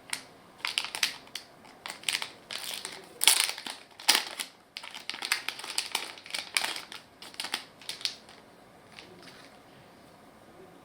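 Packaging crinkling and crackling as it is handled, in a quick, irregular run of bursts that dies down to a few faint touches about eight seconds in.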